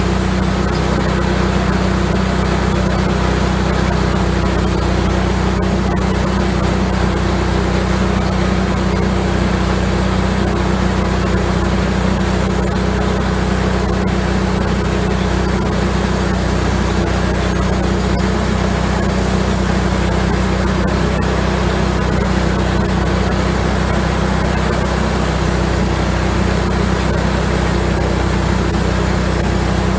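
Wood-Mizer LX150 bandsaw sawmill running steadily under load, its engine holding a constant pitch while the band blade saws through a large sweetgum log.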